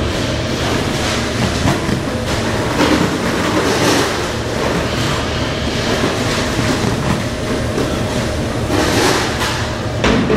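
Frozen-fish packing line running: the belt conveyors and weighing heads of a multihead combination weigher give a loud, steady mechanical noise with a constant hum. Now and then there is a clatter or knock.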